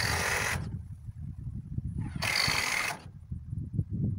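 Cordless power driver run in two short bursts about two seconds apart, driving fasteners, over a low rumble.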